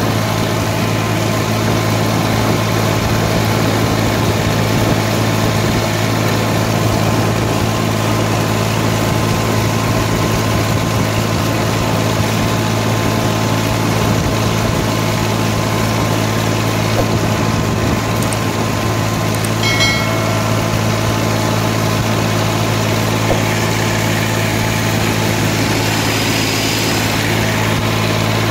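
Massey Ferguson 240 tractor's three-cylinder Perkins diesel engine running steadily under way, heard from the driver's seat beside the exhaust stack.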